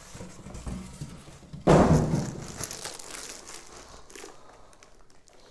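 Plastic wrapping crinkling and cardboard rustling as a network switch is handled out of its shipping box, with one loud thump about a second and a half in, then fainter rustling.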